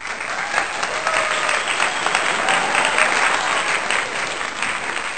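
Audience applause: a dense patter of many hands clapping, holding steady and starting suddenly.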